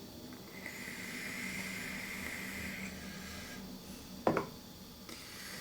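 A small motor whines steadily for about two seconds, then a single sharp click about four seconds in.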